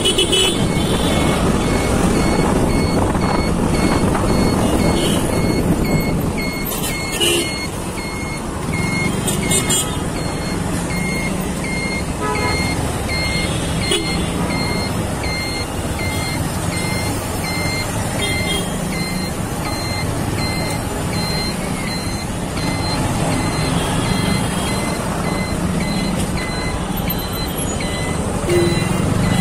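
Motorcycle engine running at low speed in slow, close traffic, with a high electronic beep repeating steadily throughout.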